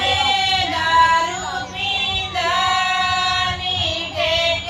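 Women singing a Punjabi folk song (lok geet) into a microphone, in long, drawn-out held notes.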